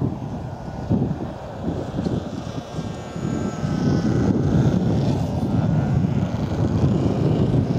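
Radio-controlled model airplane's motor and propeller running as it flies past, with a faint whine that shifts slightly in pitch near the middle. A heavy gusty rumble of wind on the microphone lies under it and grows louder in the second half.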